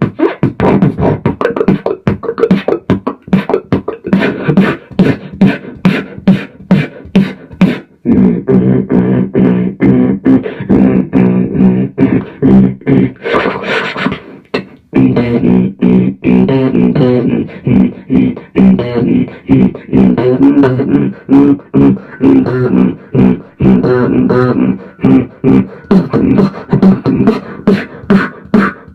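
Beatboxing into a microphone, played through a Crate TX15 amplifier: fast rhythmic kick, snare and click sounds, with a low hummed bass line joining under the beat about eight seconds in and a brief hissing sound about halfway through.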